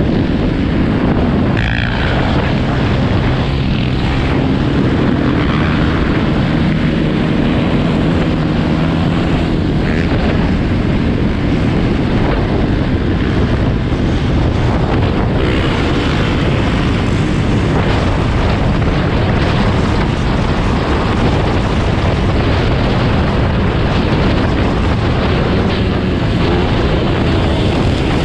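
Dirt bike engine running steadily under way, with heavy wind noise on the microphone.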